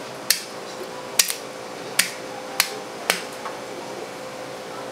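Five sharp clacks of a cutting tool striking the board during tuna butchering, the second a quick double, over a steady hum.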